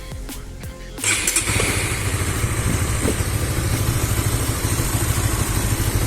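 Background music for about a second, then a Honda Supra GTR 150's single-cylinder engine comes in suddenly and runs at a steady idle with an even low pulse. It is breathing through an aftermarket UMA Racing air filter with the cover fitted, which leaves it sounding close to stock.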